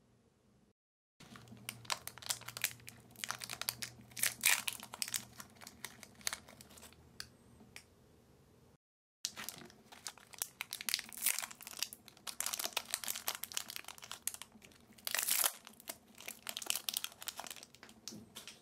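Irregular crinkling and crackling of thin plastic packaging being handled, in two stretches split by an abrupt edit cut near the middle.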